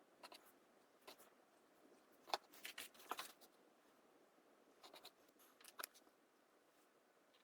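Faint, scattered clicks and small scraping taps of hand work on a miniature model house, with a brief cluster of sharper clicks a little over two seconds in.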